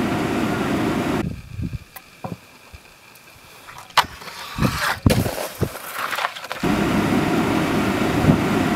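Wind buffeting the microphone with a low rumble, dropping away after about a second. It gives way to a string of sharp clacks and knocks from a snowskate deck hitting a metal stair handrail and the packed snow, the loudest about four and five seconds in. The wind rumble comes back near the end.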